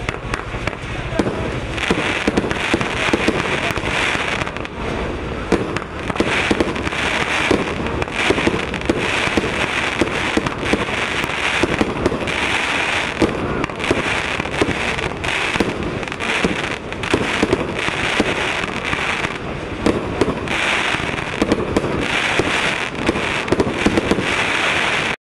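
Crown Pyrotechnics 'Silver Lion to Happy Stars' 49-shot firework cake firing: a rapid, unbroken stream of launch pops and crackling, with bursts of hissing every second or two. It cuts off abruptly at the very end.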